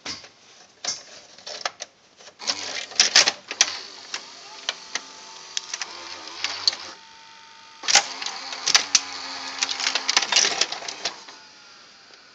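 The exposed mechanism of a VHS recorder running with its cover off: runs of rapid mechanical clicking and clatter from its gears and loading parts, with a motor whine that slides in pitch. The whine cuts off suddenly about halfway through, and a second run of clicking and whirring follows a second later before it settles.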